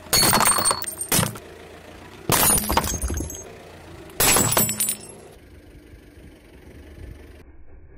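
Ceramic objects crushed under a car tyre: three loud crunches of breaking ceramic, each about a second long, about two seconds apart.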